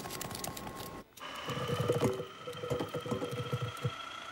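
Steady whine of a small electric motor, creeping slightly up in pitch, with a rapid irregular rattle beneath it; it sets in after a brief dropout about a second in. Before that there are faint clicks and a thin steady tone.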